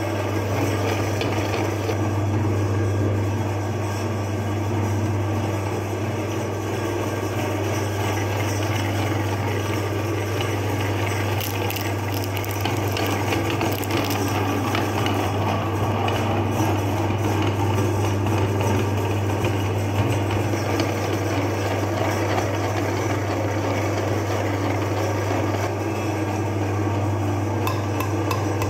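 Electric meat grinder running with a steady low hum, its auger grinding a frozen ice cream bar on a wooden stick fed into the hopper, with scattered clicks and rattles that thicken partway through.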